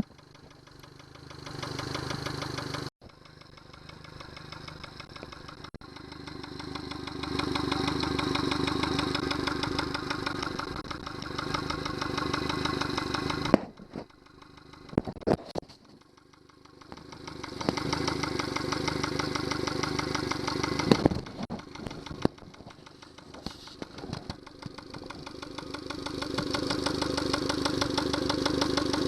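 Yamaha 70 hp outboard motor running, its sound swelling and fading several times, with sudden drops about three seconds in and again about halfway, where a few sharp clicks are heard.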